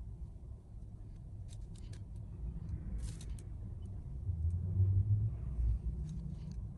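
Low, steady rumble, swelling loudest about halfway through, with a few faint light clicks and scrapes over it.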